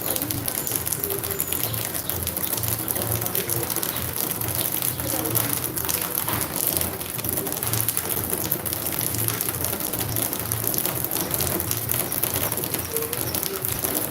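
Steady patter of rain, with a bird calling faintly a few times.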